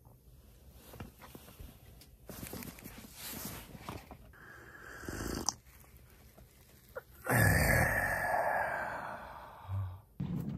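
A man gulps a drink from a bottle and then from a steel cup. About seven seconds in comes a loud, harsh vocal exhale lasting about two seconds, the loudest sound here.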